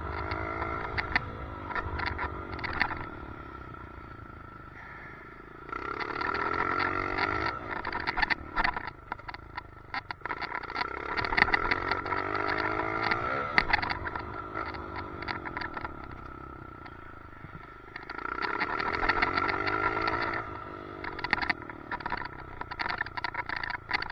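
Dirt bike engine revving up and backing off in repeated surges, heard from a helmet chin-mounted camera, with rattling clicks and a steady high whine throughout, a weird noise the rider puts down to the chin mount needing fixing.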